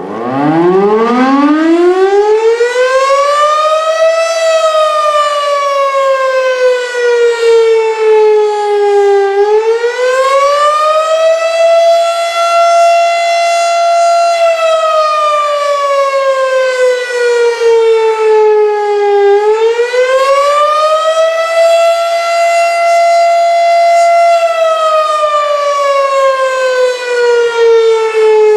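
Federal Signal STH-10 electromechanical fire siren winding up from a standstill, then wailing: its pitch glides slowly down and back up about every ten seconds, holding briefly at each top. This is its routine test sounding.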